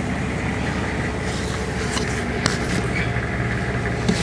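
Rollback tow truck's engine idling steadily, with a couple of light clicks about two seconds in.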